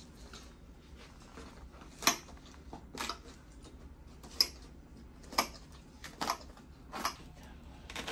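Bandage scissors snipping through the lining of a long leg cast during its removal: seven sharp snips, about one a second, over a faint low room hum.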